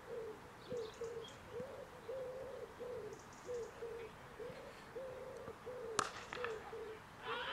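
Pigeon cooing over and over, a continuous run of low hoots about two a second. About six seconds in, a single sharp crack of a cricket bat striking the ball.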